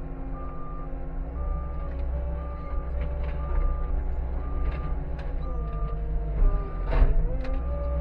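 Skid steer engine running while its backup alarm beeps steadily, about once a second. About six seconds in the engine pitch sags under load, and a sharp loud knock sounds about seven seconds in.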